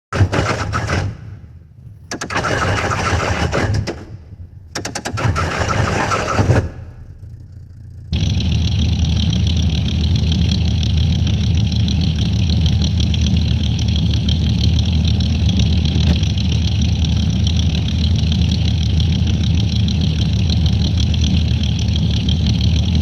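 Car engine being cranked by its starter in three separate bursts that fail to catch, then firing about eight seconds in and running steadily.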